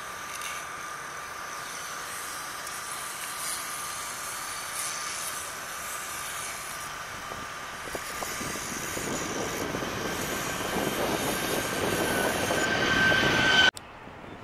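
Boeing 737 MAX's CFM LEAP-1B turbofans at takeoff power during its takeoff roll and liftoff: a steady engine whine with jet noise that grows steadily louder as the jet approaches, its whine rising in pitch, then cuts off suddenly near the end.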